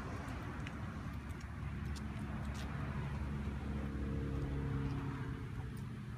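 Low road-traffic rumble, with a vehicle's engine hum growing louder through the middle and fading near the end.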